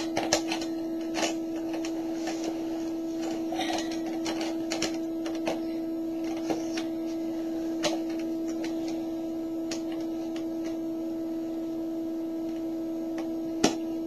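Plastic pieces of a snap-together electronics kit clicking as they are pressed onto the base grid, a sharp click every second or so, irregularly, over a steady low electronic tone.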